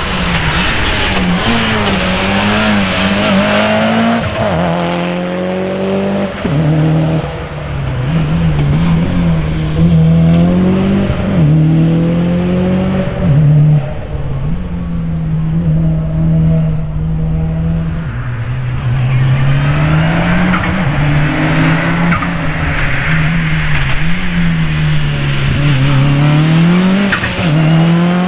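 Race car engines revving hard, the pitch climbing and dropping again and again through gear changes and braking, with several abrupt jumps in the sound.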